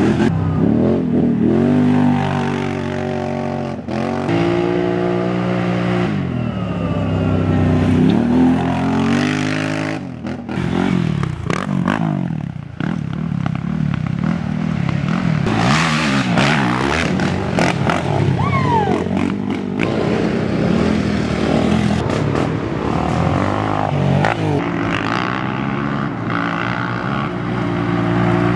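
Racing quad ATV engines revving and accelerating hard, pitch rising and falling as the riders work the throttle and pass by, in a string of short clips that cut abruptly from one to the next.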